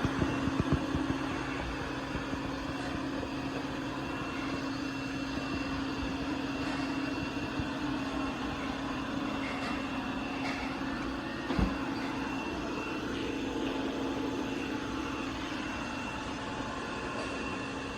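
iRobot Roomba Plus 405 robot vacuum-mop running with a steady motor hum and whir. A few knocks come within the first second, and a single knock about two-thirds of the way through.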